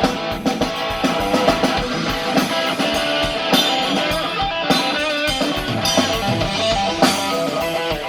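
A live band playing rock music at a sound check: guitar chords over a drum kit.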